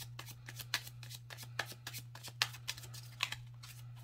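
A deck of tarot cards being shuffled by hand: a quick, irregular run of short card clicks and flicks, over a steady low hum.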